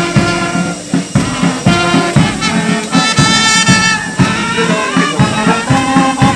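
Brass band playing march music, with sustained horn notes over a steady drum beat.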